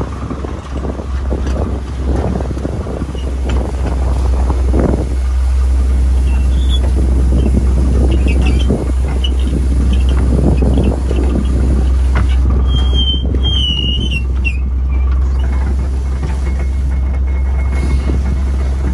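Small trawler's engine running with a steady low drone while the trawl net is hoisted up on the boom, with irregular knocking and rustling of net and gear that gets louder a few seconds in. A brief high wavering squeal comes about two-thirds of the way through.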